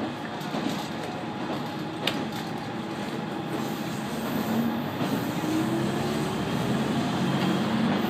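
KiHa 120 diesel railcar running, heard from inside the cabin: a steady rumble of the diesel engine and wheels on the rails, with a single sharp click about two seconds in. In the second half the engine note rises slowly and the sound grows a little louder.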